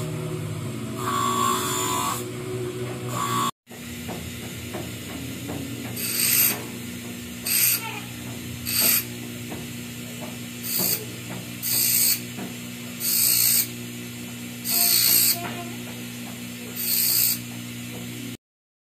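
Bench grinder motor running steadily while small steel tari (gamecock spur) blades are pressed against the spinning wheel. This gives short hissing grinds, about eight in a row, each under a second, at uneven intervals.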